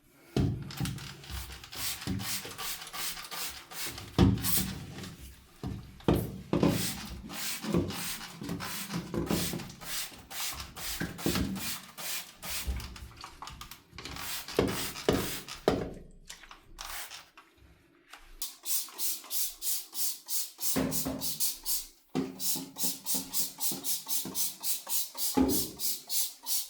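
Scrubbing a bathtub by hand, rubbing strokes against the tub's surface: uneven at first, then a steady back-and-forth of about three strokes a second from about two thirds of the way in.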